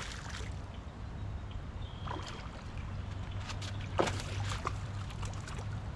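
A hooked bass splashing at the water's surface as it is fought to the bank: several short splashes, the loudest about four seconds in.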